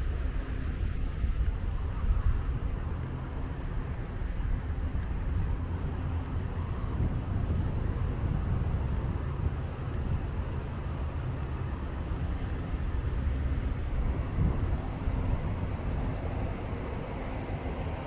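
Street traffic: a steady low rumble of passing cars and their engines.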